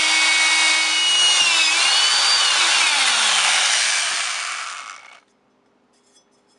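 Electric power drill running as its bit bores through a metal hard-drive platter, the motor's whine dipping in pitch and then falling. The sound stops suddenly about five seconds in, followed by near silence.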